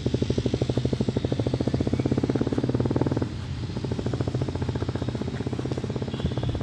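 An engine running steadily, with a rapid even pulsing and a low hum. The pulsing is strongest for about three seconds, then eases off.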